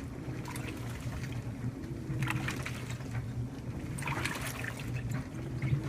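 2012 LG top-load washer on a heavy duty cycle, water sloshing in the tub with swells about two and four seconds in, over a steady low hum.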